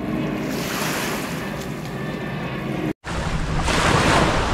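Wind buffeting the microphone over the rush of river water, a steady noise that drops out for an instant about three seconds in and comes back louder.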